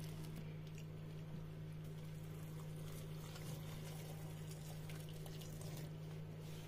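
Hot water pouring from a kettle into a plastic blender jar over frozen ewedu leaves and okra, a faint, even splashing trickle.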